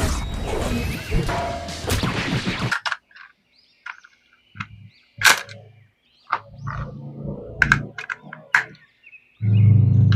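Handling of a toy and its packaging: a stretch of dense rustling that cuts off after about two and a half seconds, then scattered knocks and clicks of plastic, with a heavier thud near the end. Faint bird chirps sound in the background.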